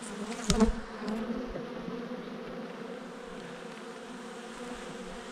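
Honeybee colony buzzing steadily from an open hive full of bees, a continuous hum. A single short knock sounds about half a second in.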